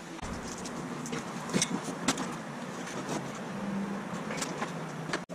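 Scattered clicks and knocks of hands working inside a desktop computer case while a power supply is swapped out, over a low steady hum.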